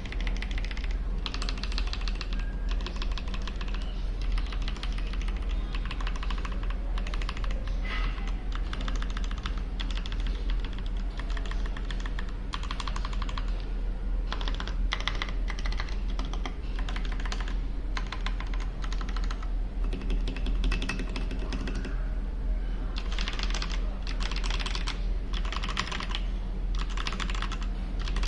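Royal Kludge RK61 60% mechanical keyboard with red linear switches being typed on fast and continuously, in runs of rapid keystrokes broken by short pauses.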